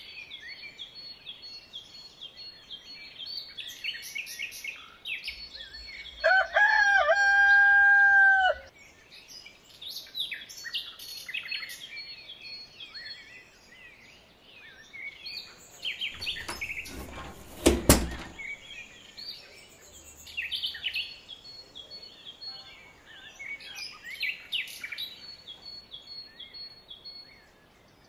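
Small birds chirping throughout, and a rooster crowing once, a loud held call of about two and a half seconds starting about six seconds in. A single sharp click about eighteen seconds in.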